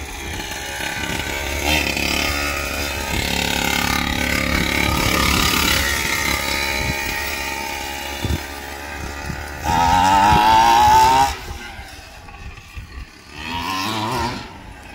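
Small two-stroke gas engine of a 1/5-scale Primal RC Raminator monster truck revving as it drives, pitch climbing over the first few seconds, a loud sharp rev about ten seconds in, then easing off before a shorter rev near the end.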